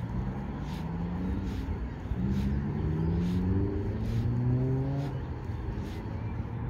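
A motor engine speeding up, its pitch rising steadily for about three seconds before fading, over a low rumble.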